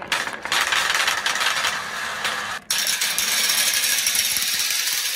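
Dozens of small colorful balls rolling and clattering together down a steel rail channel, a dense continuous rattle. It breaks off briefly about two and a half seconds in, then resumes.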